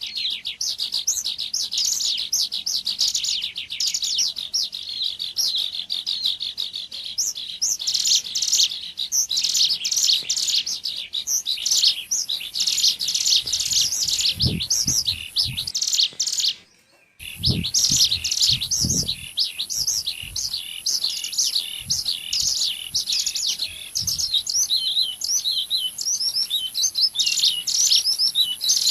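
Ciblek gunung (mountain prinia) lure calls: fast, unbroken, high-pitched chirping and trilling, several calls combined into one bird-lure track. The sound cuts out abruptly for about half a second a little past halfway, then resumes, with a few low thumps around that moment.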